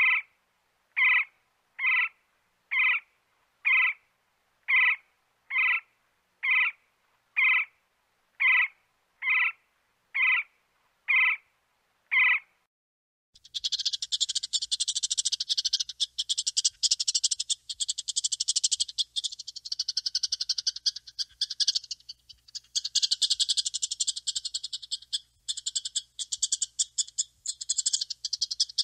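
A woodpecker gives about fourteen short, sharp calls, evenly spaced at roughly one a second. They stop about halfway through, and a dense, high-pitched trilling chorus takes over and runs on without a break.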